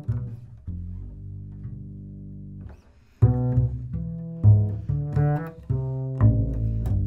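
Solo double bass played pizzicato. A low plucked note rings and fades, there is a brief pause about three seconds in, then a run of plucked notes.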